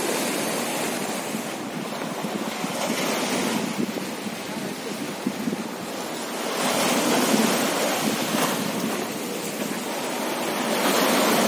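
Sea surf washing in and breaking on the shore, swelling louder in surges every few seconds as each wave comes in.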